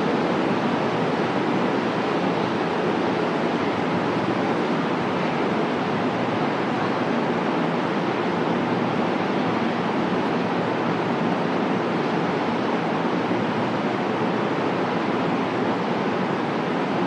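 Steady, even rushing noise of a covered railway platform's ambience, with no distinct events standing out.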